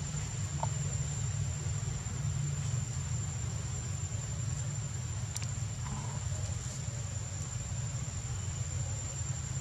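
Steady outdoor ambience: a low, even rumble with a continuous high, thin insect drone held on one pitch over it. A couple of faint, short ticks stand out about halfway through.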